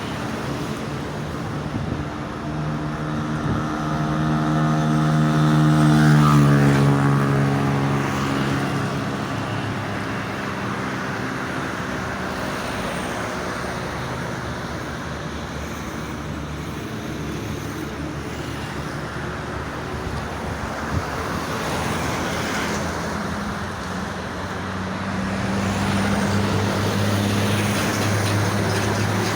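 Steady road traffic, with one vehicle passing close about six seconds in, its engine note dropping in pitch as it goes by; another vehicle's engine drone builds near the end.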